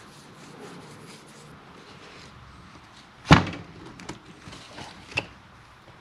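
Handling noise of a new split seal being worked onto a steel hydraulic cylinder piston, with one sharp knock a little past halfway and two fainter clicks after it.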